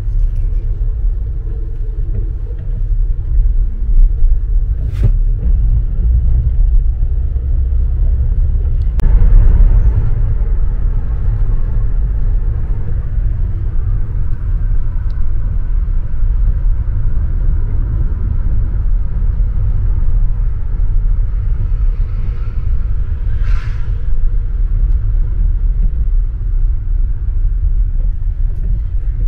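Steady low rumble of a car driving along, heard from inside the cabin: road and engine noise, with a couple of brief knocks early on the way and a short rush of hiss about three-quarters through.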